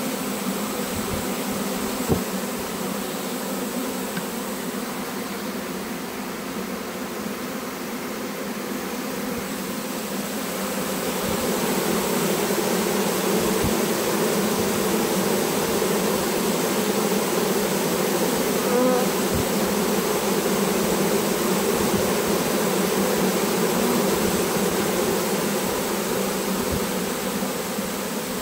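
A swarm of honeybees buzzing, a steady dense hum from many bees in the air and on the frames as they gather around their caged queen on an open hive box. The hum grows louder about ten seconds in.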